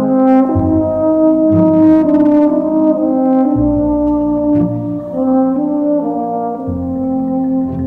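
Background music led by brass, with horn-like held chords that change every second or so and a few short percussive accents.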